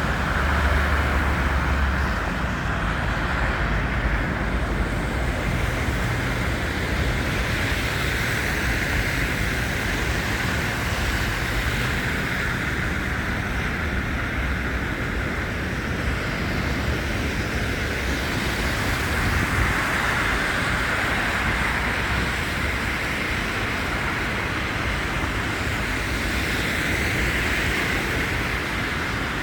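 Steady road traffic noise: a constant rushing hiss with a low, uneven rumble beneath it.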